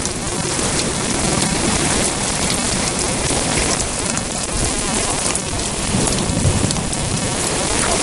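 Heavy rain pouring steadily, with thunder rumbling low beneath it and swelling about six seconds in.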